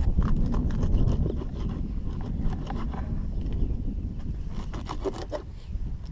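Knife cutting bunker into bait chunks on a plastic cutting board: a scattering of short scrapes and knocks, several close together about five seconds in, over a steady low rumble.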